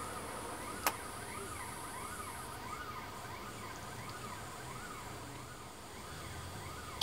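Distant emergency-vehicle siren wailing, its pitch sweeping up and down about every second, with a single sharp click a little under a second in.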